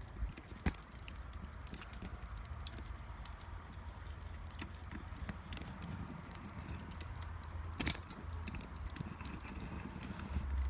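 Wood fire crackling, with scattered sharp pops over a low rumble; one louder pop shortly after the start and another about eight seconds in.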